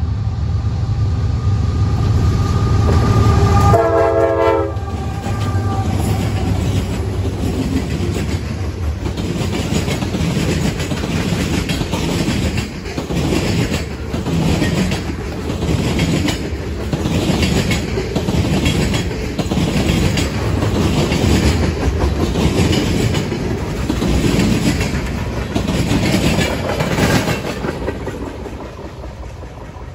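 CSX mixed freight train passing, led by GE CW44AC diesel locomotive 170: the locomotives run by with a low engine drone and give a short horn blast about four seconds in. Then the freight cars' wheels clack over the rail joints in a steady rhythm, fading near the end as the train rolls away.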